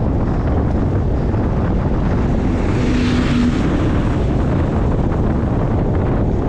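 Wind buffeting the microphone of a bicycle-mounted camera while riding at speed: a steady rushing noise. A short faint hum comes in about three seconds in.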